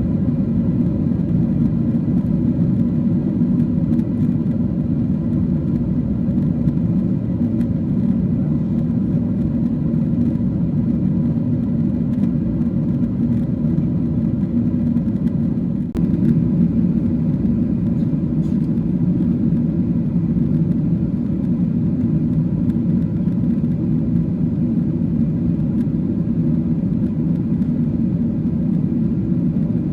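Steady cabin noise of a Boeing 777-300 airliner in cruise flight: a constant low, even rumble of engine and airflow noise.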